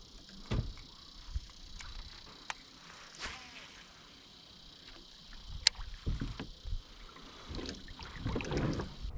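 Light knocks and water sounds from a Perception Pescador 10 sit-on-top fishing kayak as the angler handles his rod, over a steady high hiss. The sounds get busier near the end.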